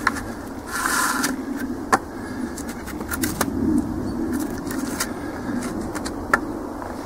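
Wooden sticks being handled and laid across one another on snow: a few sharp knocks of wood on wood over rustling handling noise.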